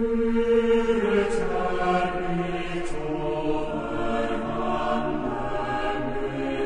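Slow background music with long held, chant-like notes that change every second or two.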